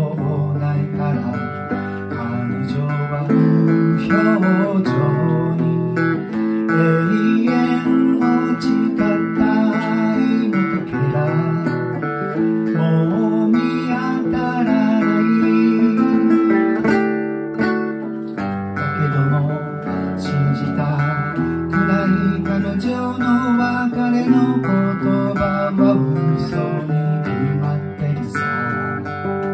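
Acoustic guitar being strummed and picked, with a man singing along at times.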